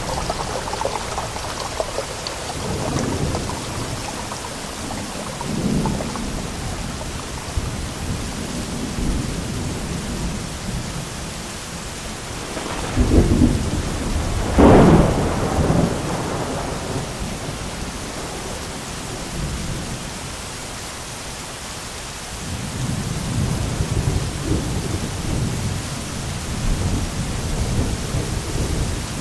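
Steady rain with rolling thunder: low rumbles swell and fade, with the loudest thunderclap about halfway through and a long rumble building near the end.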